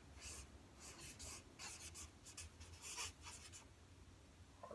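Marker pen writing letters on a large paper easel pad: a faint run of short separate strokes, which stop about three and a half seconds in.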